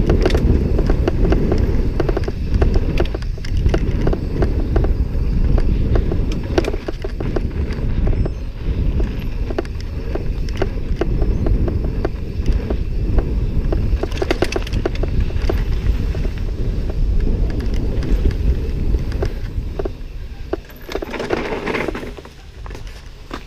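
Mountain bike rolling fast down a dirt singletrack, with wind rumbling on the microphone, tyre noise and many short clicks and rattles from the bike over the bumps. It quietens near the end as the bike slows onto gravel.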